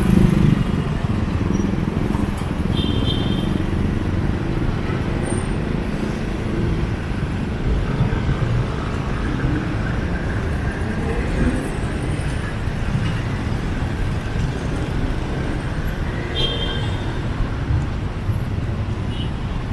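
City street traffic: a steady low rumble of passing jeepneys, tricycles, motorcycles and cars, with two short high-pitched tones, about 3 seconds in and again near the end.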